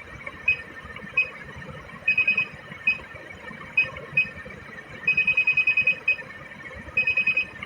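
High-pitched key beeps from a ship's heading-monitor/autopilot control panel as the magnetic variation setting is stepped. They come as single beeps and as fast runs of about eight beeps a second, the longest run about five seconds in.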